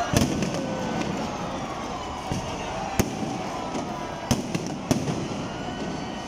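Aerial firework shells bursting: a handful of sharp bangs, the strongest about three seconds in and again just past four seconds, over a steady background din.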